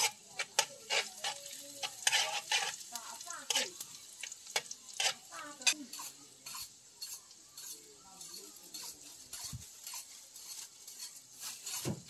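Stir-frying in a metal wok: food sizzling in hot oil while a metal utensil stirs and scrapes against the pan, with many irregular sharp clacks.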